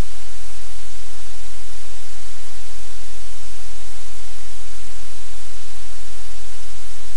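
Loud, steady hiss like static, with a low hum underneath and no change.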